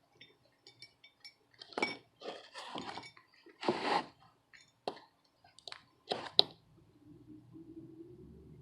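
Small metal tools clinking and tapping on a soldering workbench: a run of light ticks and taps with a few short scrapes. About seven seconds in a low steady hum starts.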